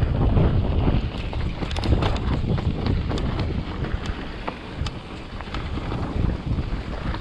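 Wind buffeting an action camera's microphone over the rumble of a hardtail mountain bike's tyres on a dirt descent, with scattered clicks and rattles. It eases about a second in and builds again near the end.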